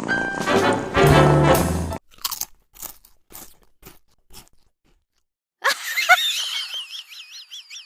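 A series of sharp crunches, then after a short silence a high, wavering, warbling tone.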